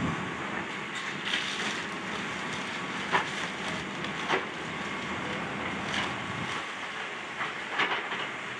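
Excavator running while demolishing a building, with debris cracking and knocking several times over the steady machine noise.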